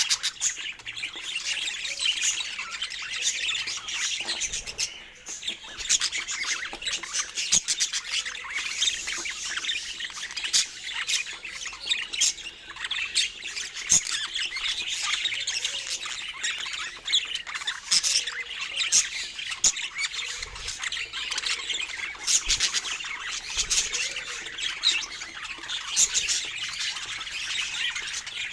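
Budgerigars chattering without a break, a dense run of overlapping chirps, warbles and sharp squawks.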